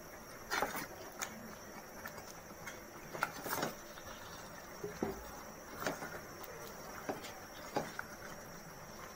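Wooden spatula clicking, knocking and scraping in a metal pot while masala paste and chicken pieces are stirred, with irregular knocks about once a second over a steady low background.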